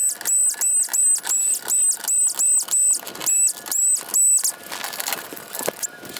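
Electric screwdriver whirring in short, high-pitched bursts, about three a second, as a series of T20 screws is run out, with a brief pause near the end.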